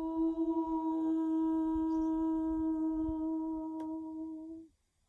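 A voice intoning the Qi Gong kidney (water) healing sound 'choo' as one long, steady note on a single pitch, cutting off abruptly near the end.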